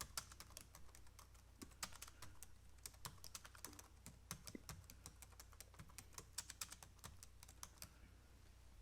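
Typing on a computer keyboard: quiet, irregular key clicks, several a second, over a faint steady low hum.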